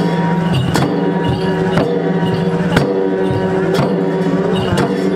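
Several chyabrung, the double-headed barrel drums of the Yakkha and Limbu chyabrung dance, beaten together in a steady rhythm. The sharp strokes are strongest about once a second, with lighter strokes between, over a steady low drone.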